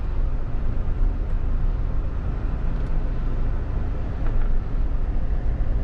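A Mahindra Thar's turbo-diesel engine running steadily at low speed as the 4x4 crawls through a dirt trench, heard from inside the cabin as a low, even drone.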